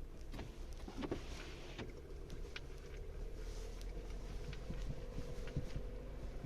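A 2021 Lada Vesta Cross running with a steady low rumble, over which come irregular light knocks and clicks: the unexplained knock its owner is trying to trace.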